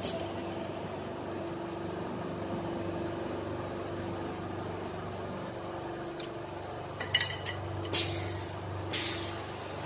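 Wood lathe for turning drumsticks running steadily with a constant hum and a single held tone. Three sharp clacks about a second apart come near the end.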